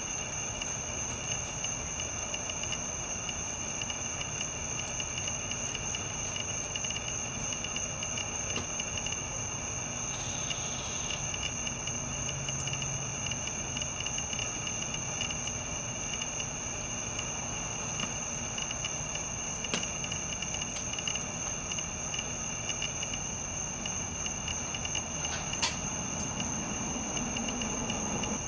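Steady, high-pitched insect trilling, held in several constant tones over a low hiss, with a faint click or two in the second half.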